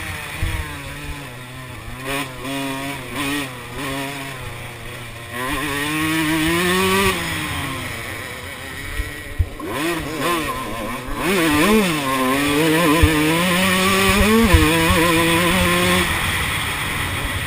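Kawasaki KX125 two-stroke motocross bike engine under hard riding, heard from the rider's helmet: the engine note climbs and drops as he works the throttle and gears, with quick rev blips near the middle and a steadier high-revving stretch later.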